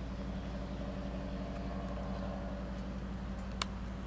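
A steady low mechanical hum with a constant pitch, like an idling engine, and a single sharp click near the end.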